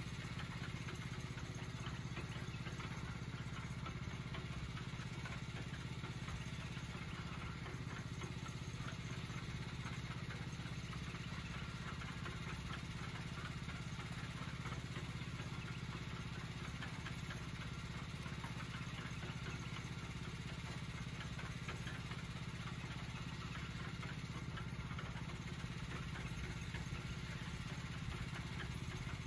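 Small engine running steadily at a constant speed, with no change in pitch or level.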